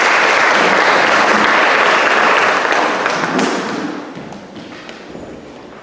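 Audience applauding in a hall, loud at first and dying away about four seconds in.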